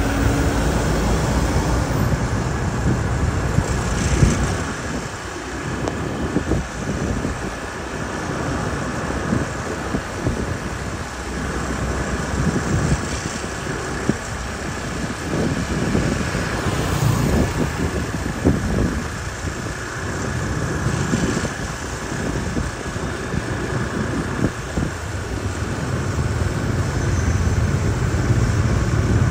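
Busy city street traffic: cars and motorbikes passing in a continuous mix of engine and tyre noise, growing louder near the end as a vehicle draws close.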